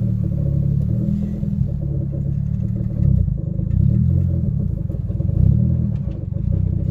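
Turbocharged Honda Civic's engine heard from inside the cabin while driving, its note rising and falling a few times as the car moves through the gears.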